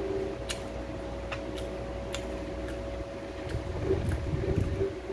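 A person chewing dried red dates (Hotan jujubes): irregular small mouth clicks and smacks, a little louder about four seconds in, over a steady low hum.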